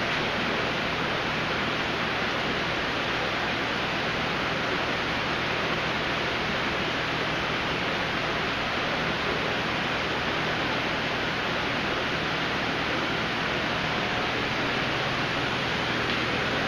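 Steady rushing hiss of aquarium water and filtration running, even and unbroken throughout.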